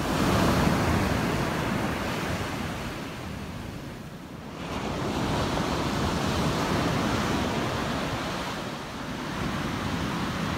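Ocean surf breaking and washing up a sandy beach, swelling and easing as the waves come in, with wind buffeting the microphone.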